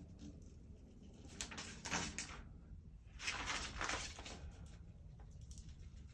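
Two scraping, rubbing swipes, each about a second long, of a vinyl decal being worked down onto a truck tailgate.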